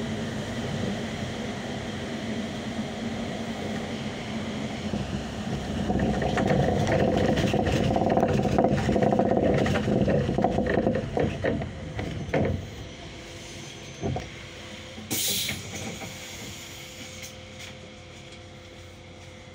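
Running noise inside a Solaris Urbino 18 III articulated city bus, growing louder about six seconds in and dying down again about twelve seconds in. A couple of knocks and a short hiss follow, and then a quieter steady hum.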